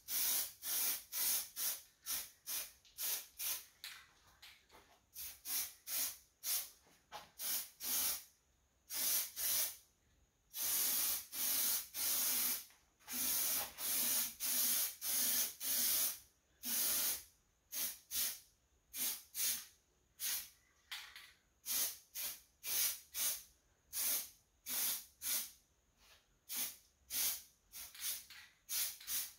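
Aerosol spray can of engine enamel spraying paint in many short hissing bursts, about two a second, with a few longer sprays of a second or two in the middle.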